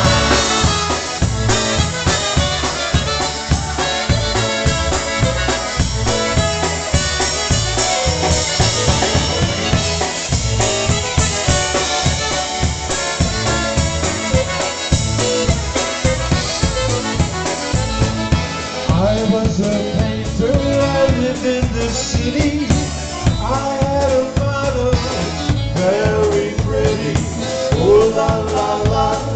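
Live polka band music: a drum kit keeps a steady polka beat under a concertina playing the melody.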